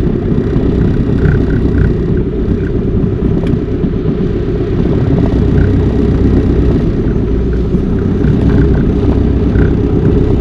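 Car driving, a loud steady low rumble of engine and road noise heard from inside the car.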